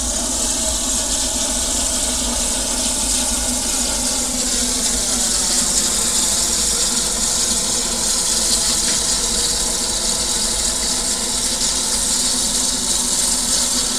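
Narrow-gauge steam locomotive hissing steam steadily, with a faint whine underneath.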